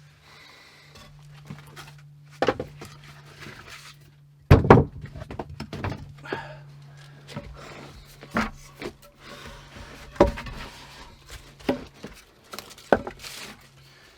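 A string of irregular thunks and knocks, about seven in all, the loudest about four and a half seconds in, over a steady low hum.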